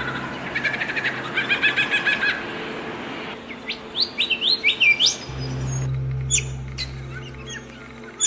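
Songbirds singing: a fast run of repeated notes, then a series of quick rising whistles about halfway through, then a few sharp high chirps. A low steady hum sits underneath from just past the middle.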